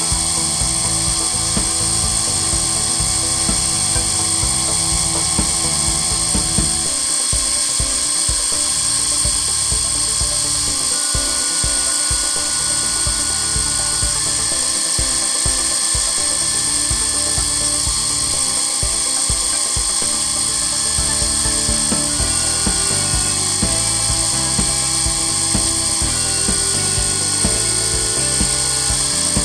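Sherline CNC mill's spindle running at high speed with a steady high whine while it cuts a logo into a skid plate, with short stepper-motor tones that change pitch and stop and start as the axes move.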